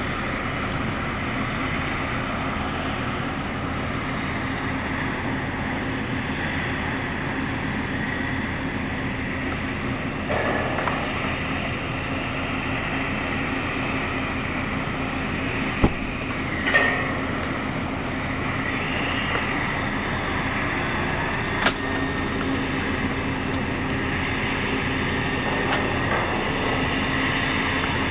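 Gas drilling rig running: a steady mechanical drone with a constant hum, broken by a few sharp knocks.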